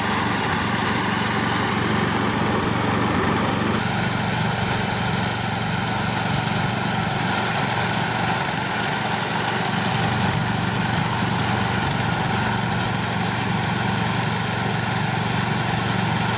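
Small engine running steadily at a constant speed, its tone shifting slightly about four seconds in.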